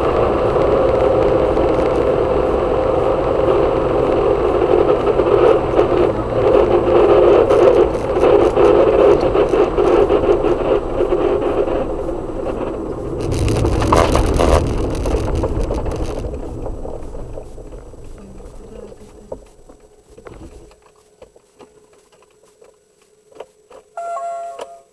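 Failing Mitsubishi 6A13 V6 engine heard from inside the car, running with a dense knocking rattle and clatter, with a louder surge about halfway through. The sound then dies away over several seconds to near silence as the engine, wrecked by overheating at high revs, seizes and stops.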